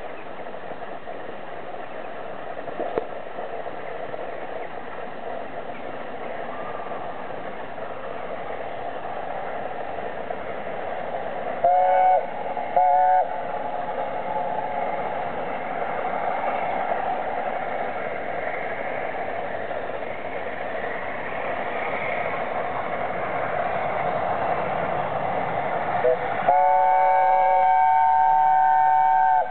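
LNER A4 Pacific steam locomotive Union of South Africa running with a passenger train, growing steadily louder as it approaches. Two short blasts on its chime whistle, a chord of several tones, come about twelve seconds in, and a long blast near the end.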